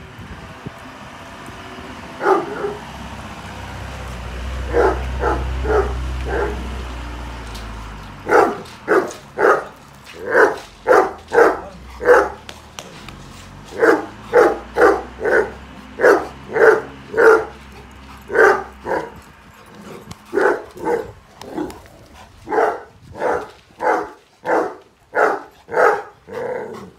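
A dog barking over and over: a few barks first, then a steady run of about two barks a second that goes on for nearly twenty seconds.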